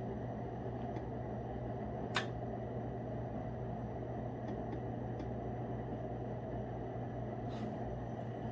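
A fan running with a steady whir and low hum, with one sharp click about two seconds in and a fainter one near the end.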